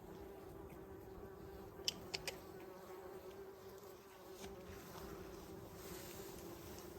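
Bees buzzing, a faint, steady drone. About two seconds in there are three sharp clicks close together.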